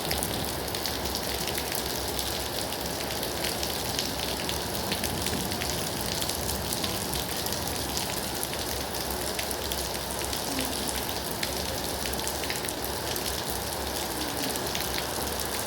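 Steady rain falling on a surface, a dense hiss with many distinct drop ticks throughout.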